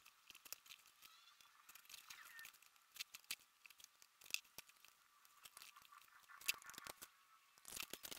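Faint, scattered clicks and light scrapes of a screwdriver working screws into a small McCulloch chainsaw engine, with the metal engine parts being handled; the clicks come closer together near the end.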